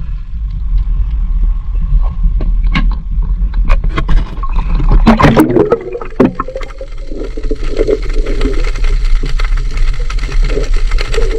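Water gurgling and sloshing over a steady low rumble, with scattered knocks and a louder run of knocks and a scrape about five seconds in.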